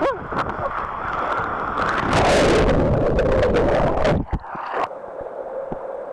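Water rushing down a water slide under a rider, then a loud splash and churning as the rider plunges into the pool about two seconds in. The sound drops suddenly to muffled underwater bubbling a little after four seconds.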